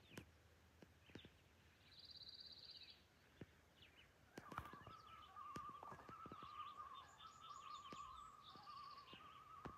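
Faint calls of a common loon: a long wavering tremolo that starts about four seconds in and runs on with brief breaks. Short high trills of small songbirds come in twice, along with a few faint clicks.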